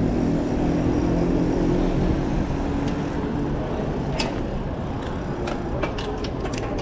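Steady rumble of riding a mountain bike through city traffic, with a low hum in the first few seconds. From about four seconds in, the bike rolls onto cobbled pavement and sharp, irregular clicks and rattles come through.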